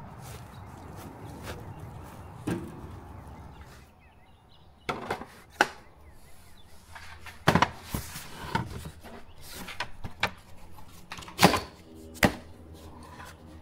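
Steady outdoor background noise for about four seconds, then a series of about eight sharp plastic clicks and knocks from a red cordless power tool and its battery being handled.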